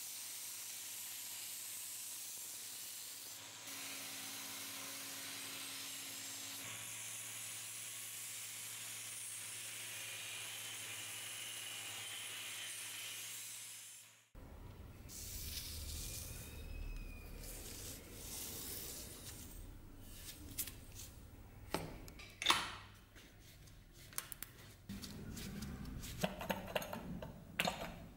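Belt grinder running, grinding the rusted blade of an old Bowie knife held in a bevel jig: a steady hiss over the motor's low hum. It stops suddenly about halfway through, and scattered clicks, knocks and rubbing of hand work follow, with one sharp click and more rubbing near the end.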